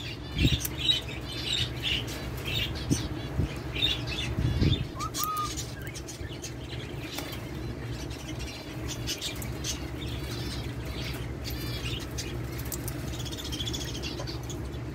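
Caged cockatiels fluttering their wings against a wire cage, with many short high chirps from the aviary birds and scattered light knocks. A steady low hum runs underneath.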